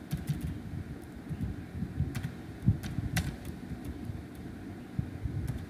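A few scattered sharp clicks of a computer keyboard and mouse over a low, uneven background rumble.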